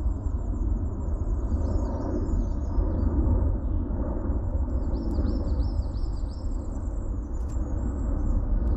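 A small songbird sings high, quick chirping phrases, several runs of short downward-sweeping notes, over a steady low rumble. Close by, dry dead leaves and bracken rustle as they are crumbled by hand into a small metal stove.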